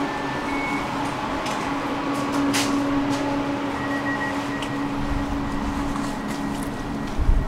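Tram running, heard from inside: a steady hum over rolling noise with a few light clicks. A low rumble sets in about two-thirds of the way through, and there is a single knock near the end.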